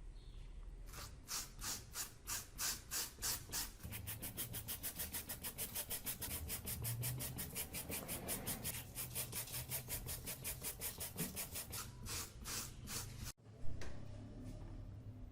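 Rapid back-and-forth rubbing strokes by hand, as of an abrasive being worked over a surface, starting at about two strokes a second and speeding up to about four a second. Near the end the strokes stop abruptly and a single sharp knock follows.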